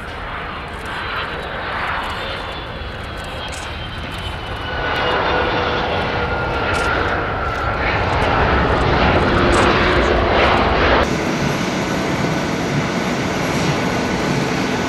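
Boeing 757 jet engines: a whine that falls in pitch and grows louder as the jet lands and passes, then after a sudden change about eleven seconds in, a steady whine of the jet taxiing.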